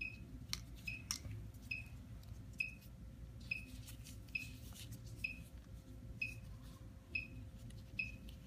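Electrocardiograph beeping, a short high beep repeated evenly about once a second, with a couple of sharp clicks from the cable clips being handled near the start.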